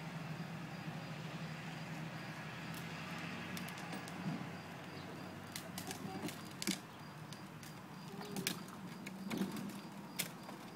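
Plastic wheels of a Little Tikes Cozy Coupe ride-on car rolling over rough concrete, with scattered sharp clicks and knocks in the second half, over a steady low hum.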